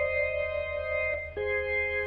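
Background instrumental music: sustained notes with a plucked-string, guitar-like sound, changing chord about a second and a half in.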